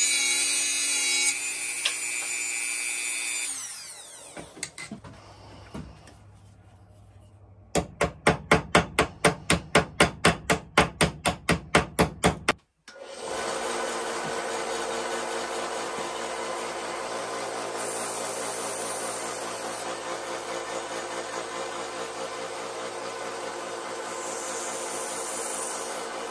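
A small rotary tool cuts through a knife's brass pin, then spins down. About eight seconds in, a hammer taps the pin roughly three times a second for about five seconds, peening it into a mushroom head. Then a Central Machinery benchtop belt sander runs steadily, grinding the knife held against its belt.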